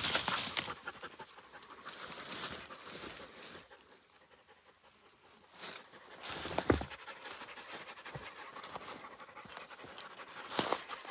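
West Siberian Laikas panting hard through open mouths, winded from a steep climb, in quick breathy bursts that ease off for a moment about four seconds in. A single short thump comes just past halfway.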